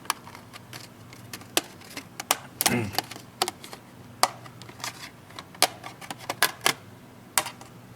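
Irregular sharp plastic clicks and snaps from a Samsung Galaxy Tab 3 tablet's housing being pried apart by hand, as its clips let go one after another.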